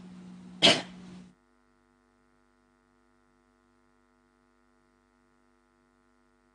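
Steady electrical mains hum on the broadcast sound, with one short sharp noise about two-thirds of a second in. The hum cuts out at about a second and a half, leaving near silence with only a faint, steady multi-tone hum.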